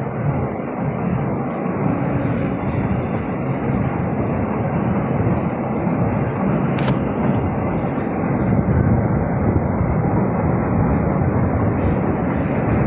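Steady rumble of a moving passenger train heard from on board, with one sharp click about seven seconds in.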